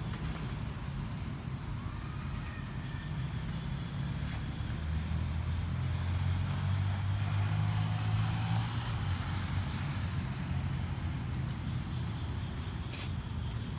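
Low, steady motor rumble like a vehicle engine, growing louder through the middle and easing off, with a single sharp click near the end.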